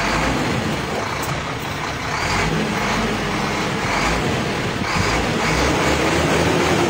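Diesel engine of a Shacman tanker truck running, getting a little louder in the second half.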